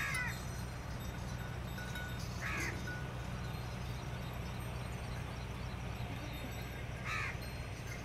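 A crow cawing three times, short harsh calls a few seconds apart, over a steady low rumble.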